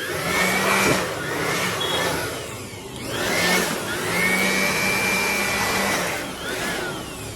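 Handheld electric air blower running in two long runs, its motor whine rising and falling as it speeds up and slows.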